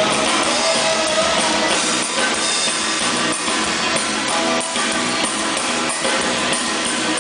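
Live band music from a sound check, with guitar and drums, recorded on a camera microphone so it sounds thin, with almost no bass.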